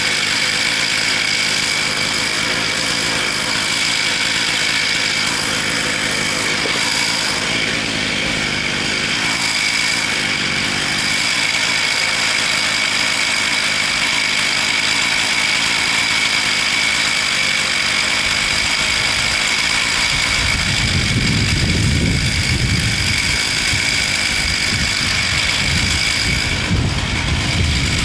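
Chainsaw engine idling steadily while the saw rests on its Alaskan mill frame. A low rumble joins in over the last several seconds.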